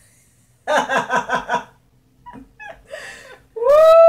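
A woman laughing in a quick run of short 'ha' bursts about a second in. Near the end this becomes a long, drawn-out 'woo!' whoop of delight.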